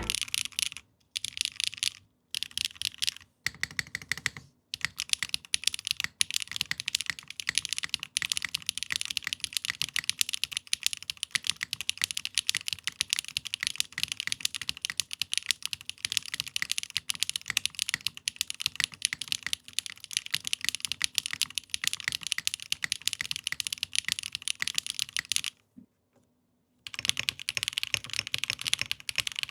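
Mechanical keyboard with 80Retros KD400 switches being typed on: a rapid, continuous run of keystroke clacks. There are brief pauses in the first few seconds and a gap of about a second near the end before the typing resumes.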